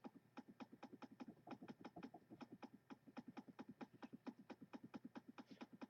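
Computer mouse scroll wheel clicking faintly and rapidly, about seven or eight even ticks a second, as a long list is scrolled through.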